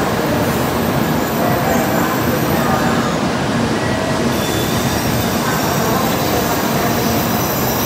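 Shinkansen train moving alongside the platform: a loud, steady rumble and hiss with faint whining tones.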